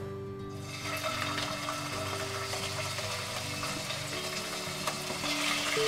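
Raw boneless chicken pieces dropping into hot oil in a pot and sizzling, the sizzle starting about half a second in and going on steadily, over soft background music.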